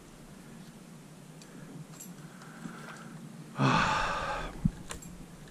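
A man's heavy sigh, a short breathy exhale, about two-thirds of the way in, followed by a sharp click.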